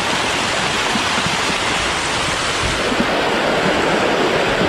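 A dense mass of farmed catfish thrashing and splashing at the pond surface in a feeding frenzy: a loud, steady churning of water.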